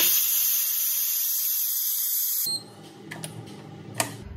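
Ninja Foodi pressure cooker's release valve venting steam on quick release: a loud, even hiss that starts suddenly and cuts off after about two and a half seconds as the pressure is spent. A sharp click near the end as the lid latch is lifted.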